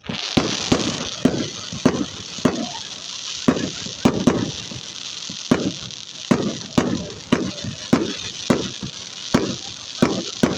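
Repeated loud bangs like rifle fire, irregularly spaced at about one to two a second, each trailing off in an echo, over a steady hiss. The bangs sound exactly like an SA80 5.56mm rifle.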